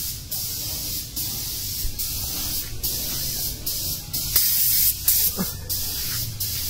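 Compressed-air paint spray gun spraying paint, a loud hiss in a run of short bursts with brief breaks about once a second as the trigger is released and pulled again.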